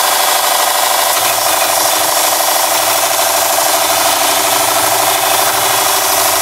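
Ultimate Edge belt sharpening system running, with a high speed steel turning tool held against the moving abrasive belt: a steady grinding noise.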